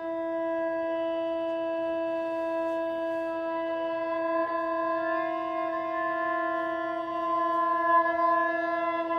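A long held note at one steady pitch, rich in overtones, sustained unbroken, with a slight swell about eight seconds in.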